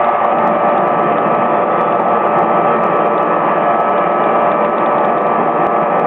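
Small propane burner running steadily, an even rushing flame noise with a steady hum under it, heating an aluminum compressor head for repair with alloy rod.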